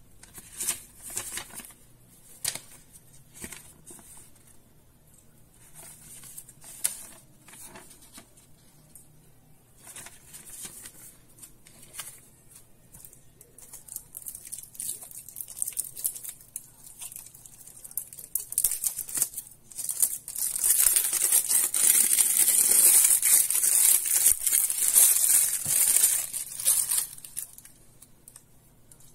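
Hands handling a paper instruction manual and a new multimeter with its packaging. Scattered light rustles and clicks come first. About twenty seconds in, a loud stretch of rustling and tearing noise lasts some seven seconds.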